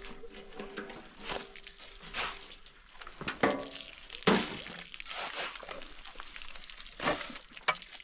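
Shovel scraping and chopping into a heap of wet cement-and-sand mix, about six short strokes, while water from a garden hose pours onto the pile.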